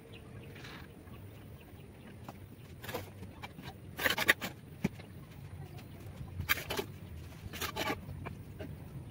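Steel trowel scraping and spreading mortar on a brick course: a few short rasping strokes, the loudest about four seconds in, with a single sharp tap shortly after.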